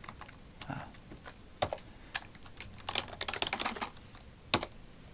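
Typing on a computer keyboard: a few separate keystrokes, then a quick run of keys about three seconds in, and one more key near the end.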